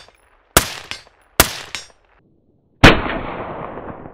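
Rifle fired through a Surefire SOCOM RC suppressor: two sharp shots under a second apart, then about three seconds in a louder shot with a long fading tail.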